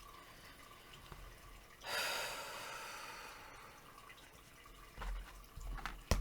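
A long, breathy exhale that starts suddenly about two seconds in and fades away over about two seconds, followed near the end by a few soft low thumps.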